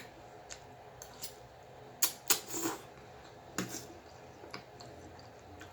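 Scattered light clicks and taps of utensils against a dish, with soft mouth noises of eating.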